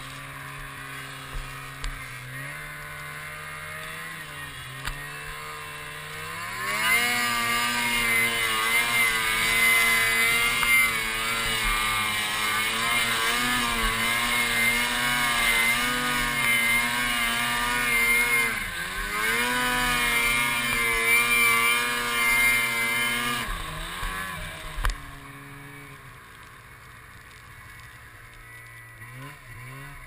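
Snowmobile engine on a hard hill climb: it runs at moderate revs, then about seven seconds in revs up high and holds there with the pitch wavering and briefly dipping, and eases off to a lower, quieter run in the last few seconds.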